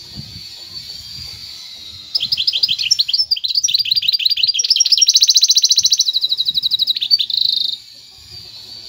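Caged goldfinch hybrid (mule) singing: about two seconds in, a loud song of rapid repeated high notes starts. It moves into a fast buzzy trill and ends with a short rapid trill a second before the end.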